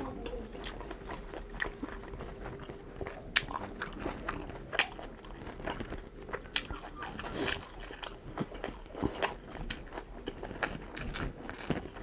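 A person eating chicken and fried rice close to the microphone: wet chewing with many irregular, crisp crunching bites.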